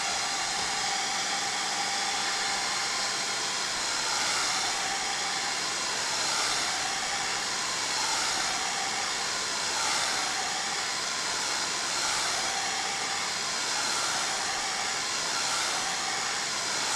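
Handheld hair dryer blowing steadily on high, heating a tablet's glued-down touchscreen to soften the adhesive.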